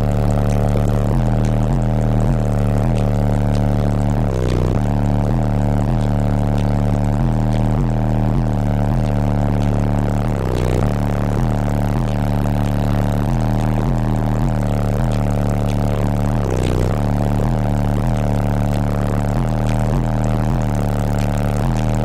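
Bass-heavy music played loudly through a car audio system's wall of subwoofers, powered by Down4Sound JP43 amplifiers. The deep bass line steps through a repeating pattern of low notes and dominates the sound.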